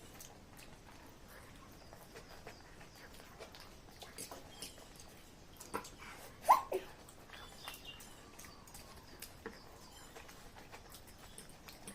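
Close-up eating sounds of chow mein noodles: soft chewing with scattered small clicks and smacks, and one louder short sound about six and a half seconds in.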